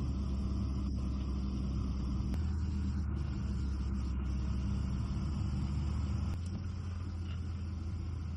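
Steady low rumble of a motor vehicle running, with an even hum and no rise or fall in pitch.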